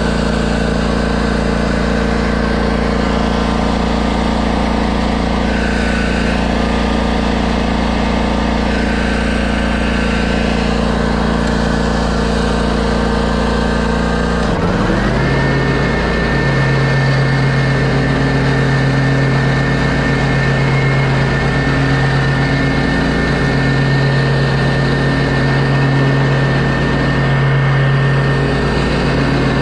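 Exmark stand-on lawn mower engine running steadily. About halfway through, its note dips briefly and then rises to a higher steady pitch.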